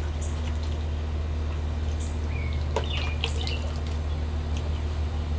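Steady low hum, with a few short bird chirps and light rustling and snapping of leaves about three seconds in as plants are picked through.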